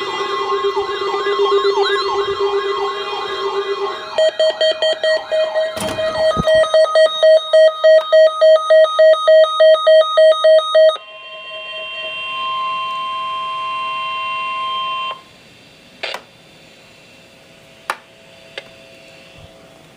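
Weather-alert radio receivers set off by the weekly test signal: a warbling siren-like alarm, then rapid electronic beeping about three times a second, then a steady warning alarm tone for about four seconds that cuts off sharply. A few faint clicks follow.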